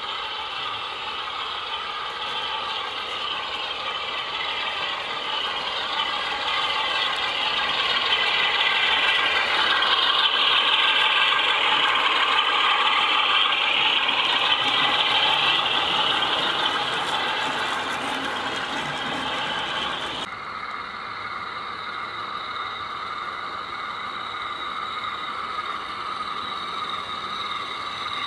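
0 gauge model diesel freight train (a Class 47 on Speedlink wagons) running past on garden-railway track, its motor, gears and wheels whirring. The sound builds to a peak around the middle as the train passes, then eases. It drops suddenly about two-thirds of the way in to a steadier, fainter running sound.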